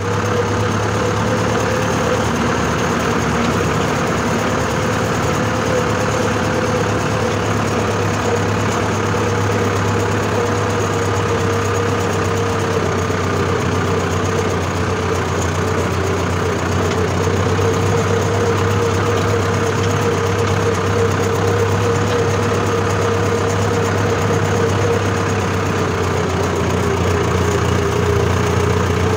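Mahindra tractor's diesel engine running steadily, heard up close from the driver's seat, its pitch dropping slightly near the end.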